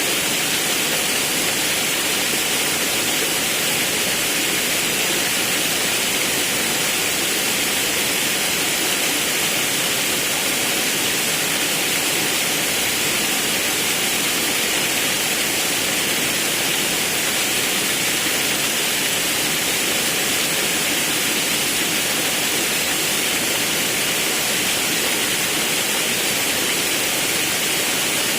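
Forest river and waterfall rushing: a steady, even roar of falling and flowing water.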